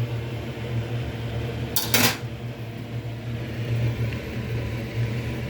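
A short clatter of kitchenware about two seconds in, over a steady low hum.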